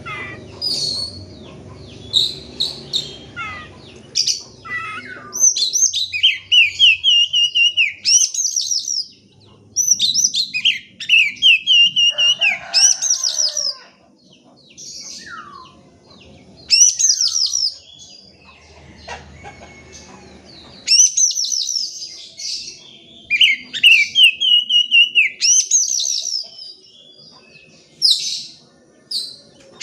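Oriental magpie-robin (kacer) singing loud, varied phrases of fast whistles and trills, with one phrase repeated several times and brief pauses between phrases.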